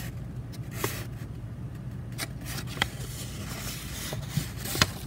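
Paper instruction leaflet being handled and unfolded: a few light, scattered ticks and rustles over a steady low hum.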